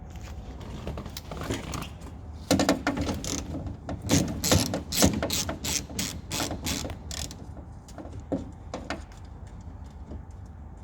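Socket ratchet clicking in short bursts as a 10 mm bolt holding the door handle's backing plate is undone. The clicking starts about two and a half seconds in and thins out to a few last clicks near the end.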